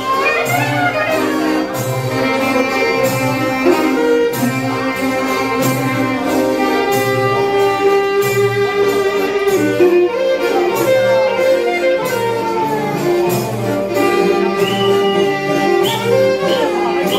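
Live Greek folk dance music from a small band: violin and clarinet carry an ornamented melody with sliding notes over accordions and a steady bass beat.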